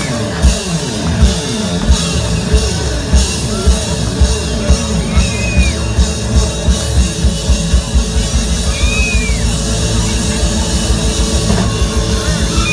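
Live band playing an upbeat rock-style song over a PA, with a drum kit keeping a steady beat.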